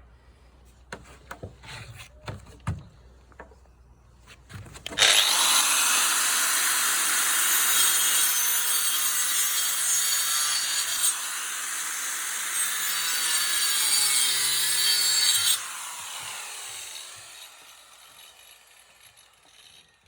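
Dewalt angle grinder with a wood-cutting disc cutting across a wooden pallet board. A few light knocks come first, then about five seconds in the grinder cuts loudly for about ten seconds. It then comes off the wood and winds down with a falling whine.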